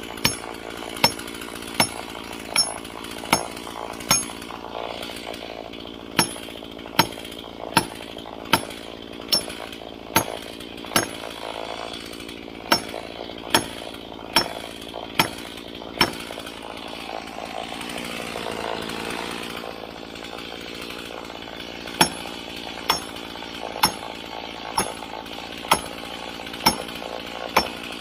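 A chainsaw running steadily, with sharp regular knocks a little faster than one a second over it. The knocks are the loudest sound and pause twice.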